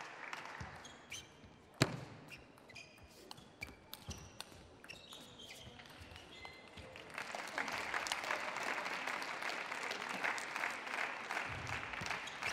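Table tennis rally: the celluloid ball clicking off bats and table, with one sharp hit about two seconds in and shoes squeaking on the court floor. From about seven seconds in the crowd applauds the point.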